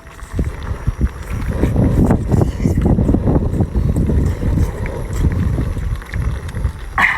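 Close-miked eating of seafood: loud, irregular chewing with many small wet clicks, smacks and crunches.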